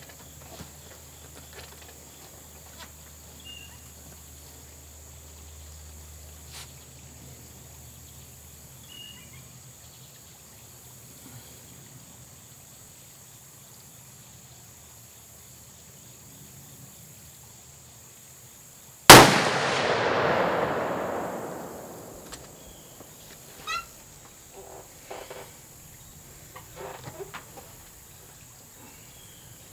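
A single shot from a custom-built .45 calibre smokeless muzzleloader rifle about two-thirds of the way in: a sharp report whose echo dies away over about three seconds.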